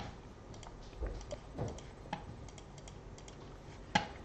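Irregular clicks and taps of a computer keyboard and mouse, a sharper click just before the end.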